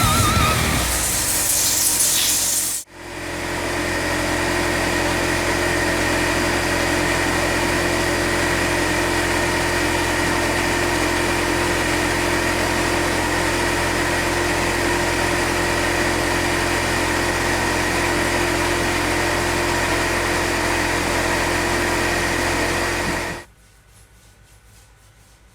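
Air compressor motor running steadily with a hum and a fixed whine, then cutting off abruptly about 23 seconds in. A short hiss of air comes before it starts.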